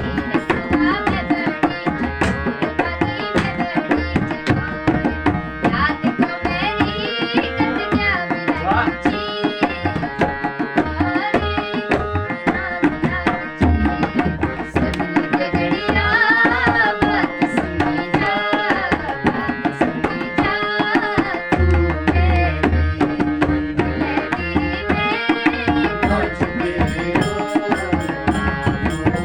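Kumaoni folk song music: a melody over a fast, steady hand-drum rhythm.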